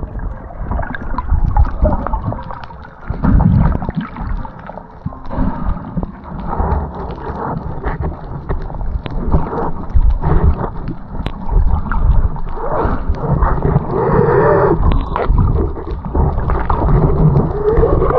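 Muffled water sloshing and gurgling around the camera as a swimmer moves through the sea, in irregular surges with scattered knocks and bumps.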